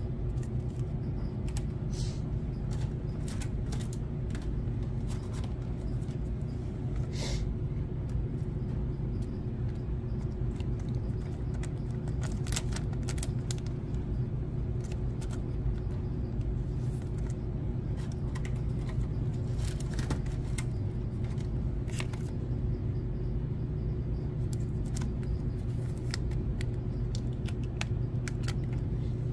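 Steady low background hum with scattered light clicks and rustles of trading cards and a rigid plastic card holder being handled.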